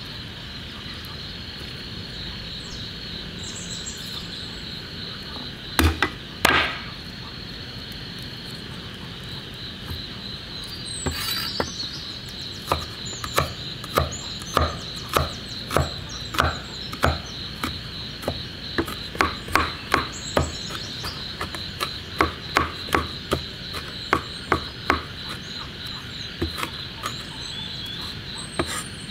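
A steel cleaver chopping peeled garlic on a wooden cutting board: two heavy knocks about six seconds in, then a steady run of sharp chops at about two a second. Insects chirp steadily in the background.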